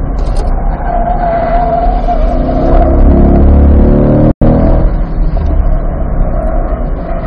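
Cabin sound of a 2020 C8 Corvette's mid-mounted 6.2-litre V8 on track over steady road and wind noise: the engine runs through braking and a downshift to third, then pulls hard under full throttle from about three seconds in. The sound cuts out for an instant a little past four seconds.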